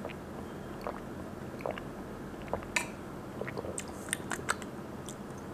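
Close-miked mouth sounds of a person sipping and swallowing a drink: small wet clicks and lip smacks over a quiet room, more frequent in the second half.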